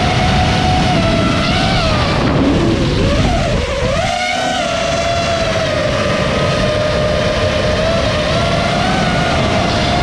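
FPV quadcopter drone's motors and propellers whining steadily, the pitch dipping and then climbing again about three to four seconds in.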